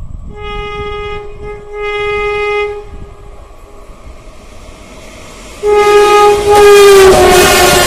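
Electric locomotive horn of an approaching WAP-7: two short blasts, then a long, louder blast whose pitch drops as the locomotive passes. The rush and clatter of the train rise near the end.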